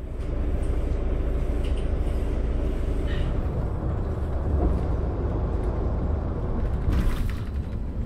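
Steady low engine and road rumble inside a moving city bus, with a short hiss about seven seconds in.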